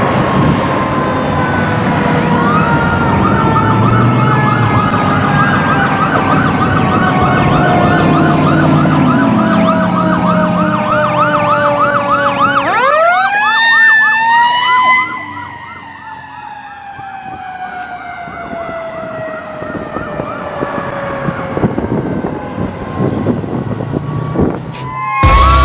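Fire engine responding with two sirens over its engine rumble: a mechanical siren winding slowly down while an electronic siren yelps rapidly. About 13 s in, the mechanical siren spins sharply back up. As the truck passes, the sirens fall away quieter and lower. Music starts right at the end.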